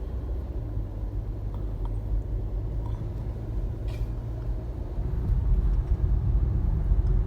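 A car running with a steady low rumble, getting louder about five seconds in.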